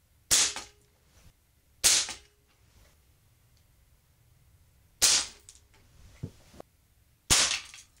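Four shots from a Crosman American Classic pump air pistol, each a sharp crack with a brief ring-off, one to three seconds apart, as pellets are fired into a plastic security keypad. Two faint clicks fall between the third and fourth shots.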